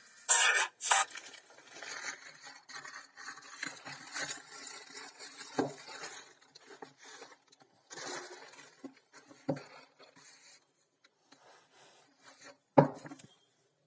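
Books and packaging being handled: rustling and scraping, with a few sharp knocks, the loudest near the end.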